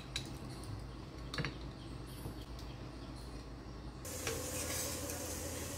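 A steel spoon scooping halwa from a ceramic bowl, with a few light clicks of spoon on bowl. About four seconds in, the sound cuts to a steady sizzling hiss with stirring in a cooking pot.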